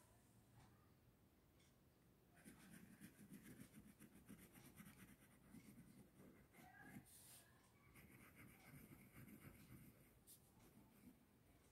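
Faint rapid scratching of a plastic glue bottle's nozzle rubbed across paper as glue is spread, starting about two seconds in.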